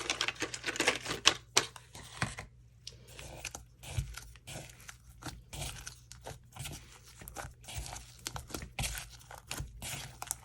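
Homemade slime being squished and stretched by hand, giving a run of irregular sticky crackles and pops, busiest in the first two seconds.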